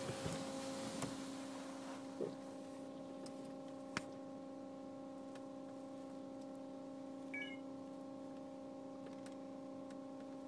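Rollover car wash machinery heard from inside the car: a steady electric whine with several fixed pitches. Water spray hisses on the car during the first two seconds, then fades, leaving the whine, with a sharp click about four seconds in.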